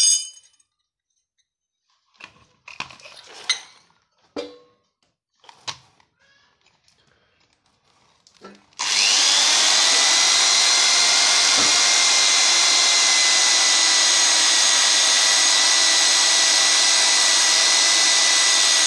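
A few handling knocks and clicks, then about halfway in an electric hand drill starts and runs with a steady whine, boring a hole through a thin metal support strip.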